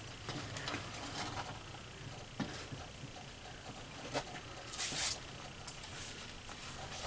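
Wooden spatula stirring thick sausage gravy in a cast iron Dutch oven: soft, scattered scrapes and taps against the pot, one longer scrape about five seconds in.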